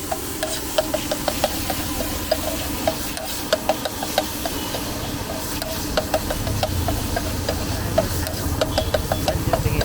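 Metal spatula stirring food frying in a pan on a street-food cart: an irregular run of sharp clinks and scrapes against the pan, several a second, over a steady sizzle. A low rumble comes up about two-thirds of the way through.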